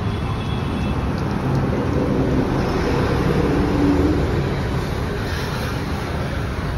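Street traffic: a steady rumble of passing vehicles and engines.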